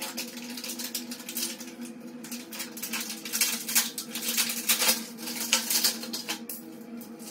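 Tools and plastic wrapping being handled while rummaging in a tool bag: scattered rustles, clicks and light clatter, busiest from about three to six seconds in, over a steady low hum.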